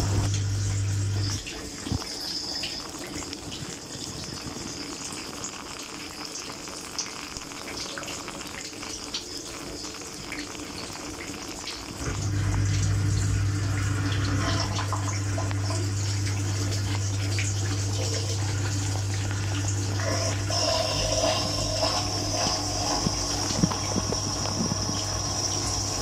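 Dishwasher running, heard from inside the tub: a steady pump motor hum and water spraying and splashing over the racks and dishes. The hum stops about a second and a half in, leaving quieter water sounds, and starts again about halfway through, with a brighter spray hiss joining near the end.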